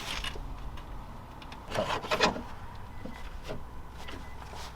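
Scraping and knocking of metal parts and tools being worked at a car's front suspension, with a short cluster of knocks about two seconds in and a few light ticks after.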